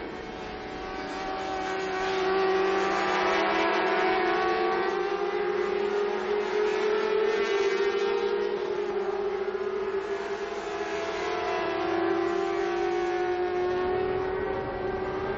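A pack of 600cc four-cylinder racing motorcycles running at high revs, several engine notes overlapping and wavering up and down as the riders work through the gears. The sound grows louder about two seconds in and then holds.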